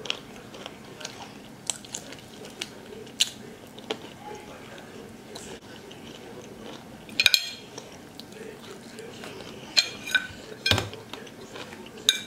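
Close-up eating sounds: chewing on a piece of chicken, with scattered sharp clicks and clinks of a metal fork against the plate, the loudest in the second half.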